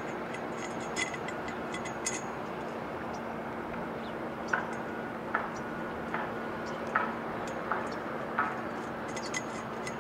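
Light metallic clicks and clinks, some with a short ring, scattered about a second apart: a steel eye bolt and its nut being fitted by hand into a metal greenhouse frame tube.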